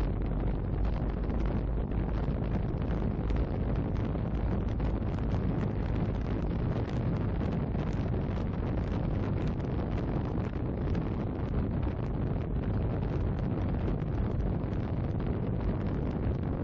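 Steady wind rush on the microphone of a camera riding on a moving Honda Silver Wing GT 600 scooter, with the scooter's running noise beneath it.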